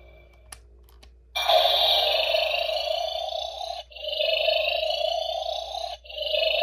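A button click on an Ultraman X Xdevizer transformation toy, then its electronic power-on and standby sound effect: a buzzing synthetic tone that loops about every two seconds.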